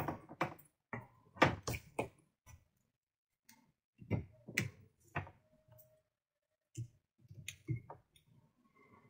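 Scattered clicks and taps of test leads and small clips being handled and clipped onto a circuit board's test points, coming in a few short clusters with quiet gaps between.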